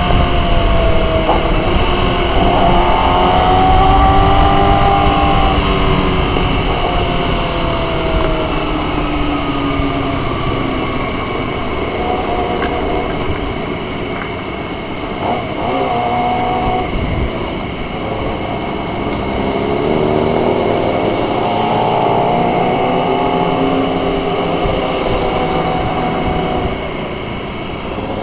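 Motorcycle engine running while riding, its pitch rising and falling with the throttle, over heavy wind rumble on the microphone.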